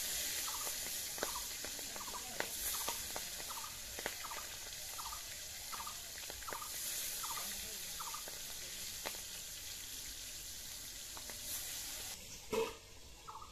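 Pieces of boyal fish sizzling as they fry in hot oil in an iron wok, with scattered crackles and pops; the sizzle swells as pieces go in. A short high chirp repeats a little faster than once a second throughout.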